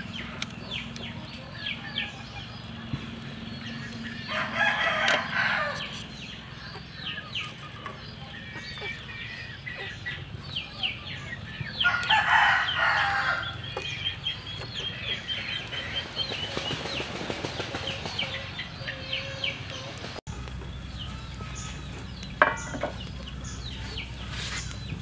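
Domestic chickens clucking around the yard, with a rooster crowing twice, about four seconds in and again about twelve seconds in.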